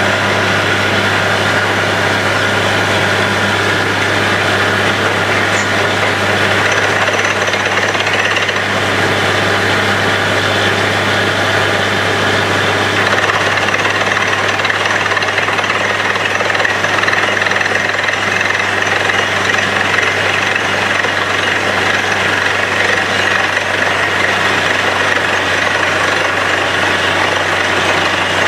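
Borewell drilling rig running steadily under load while drilling: a continuous engine and compressor drone with percussive hammering, as muddy water and cuttings are blown out of the bore hole.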